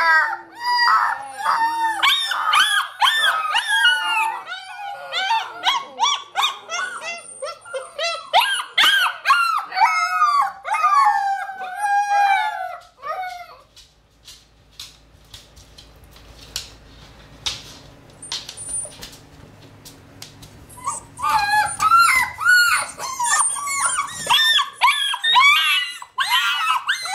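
A litter of six-week-old Alaskan Malamute puppies howling together in high, overlapping cries that rise and fall, calling for their mother to feed them. They go quiet about halfway through, then start again some eight seconds later.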